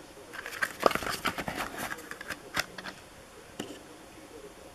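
Cardboard firework tubes handled up close: irregular rustling, scraping and light taps of card against fingers and other tubes, with a couple of sharper clicks.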